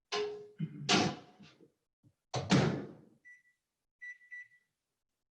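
Microwave oven door thudding and clacking three times, the second the loudest, then a few short electronic beeps from its keypad.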